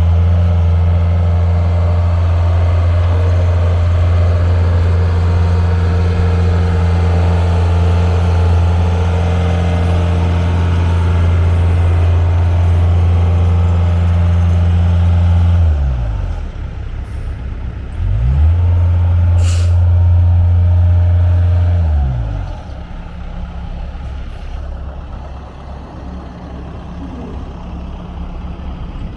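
Bobcat S175 skid steer's four-cylinder diesel engine running steadily at high throttle. About halfway through it is throttled down to idle, revved back up a couple of seconds later, then throttled down again and left idling. A brief sharp click comes between the two drops.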